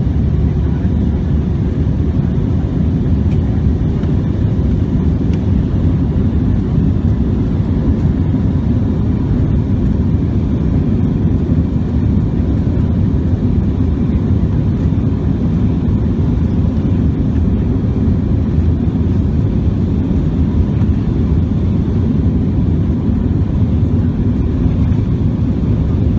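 Steady low cabin noise of an Airbus A321-200 climbing after take-off, heard from inside the passenger cabin: engine and airflow noise.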